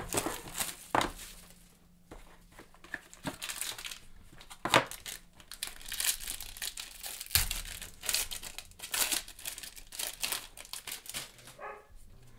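Foil wrapper of a trading-card pack being torn open and crinkled by hand, an irregular run of crackling and ripping. A dog barks once near the end.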